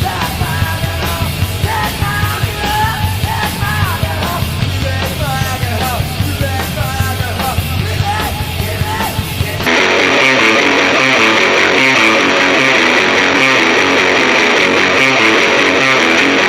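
Punk-grunge music: shouted singing over distorted electric guitar, bass and drums. About ten seconds in it cuts abruptly to a louder, brighter distorted electric guitar playing chords alone, with little deep bass, through a Fender Twin Reverb amp-simulation impulse response.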